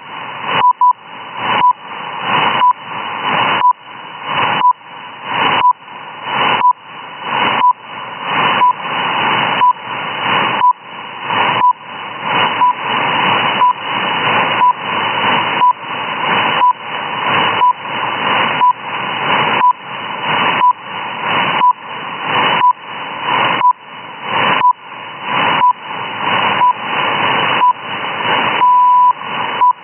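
RWM shortwave time-signal station received on an SDR: short 1 kHz beeps once a second over shortwave hiss, the hiss dipping at each beep and swelling back. Near the end comes one longer beep, the minute mark.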